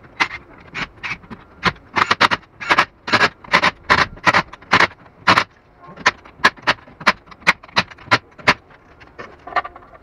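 A wrench working the lug nuts of a truck wheel: a string of short, sharp rattling bursts, about two to three a second, that stops about a second and a half before the end.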